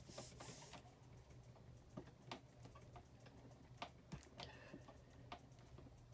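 Faint, scattered light clicks and taps as clear acrylic stamps, an acrylic stamp block and a magnet are handled and set down on a My Sweet Petunia stamp-positioning platform, after a brief rubbing sound at the start.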